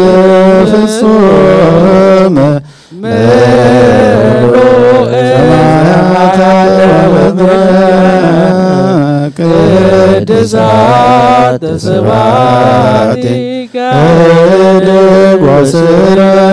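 Ethiopian Orthodox liturgical chanting by the clergy at a prayer for the dead: a slow, sustained sung prayer with short breaks about 3 s in and near 14 s.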